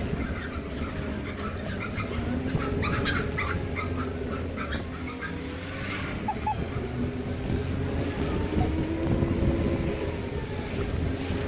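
Wind noise and road rumble from a moving vehicle following traffic along a street, with a faint engine tone gliding up and down. Two short, sharp high-pitched sounds come about six seconds in.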